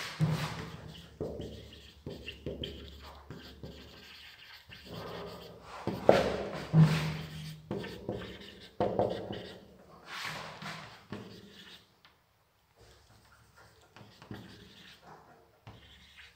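Marker pen writing on a whiteboard: irregular rubbing and squeaking strokes as letters are written, with a few louder strokes about six to seven seconds in.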